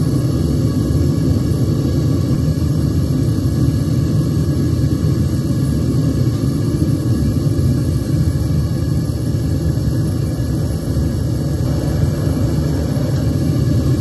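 Gas burner of a homemade metal-melting furnace firing steadily, a constant low rumbling rush with the flame venting from the lid.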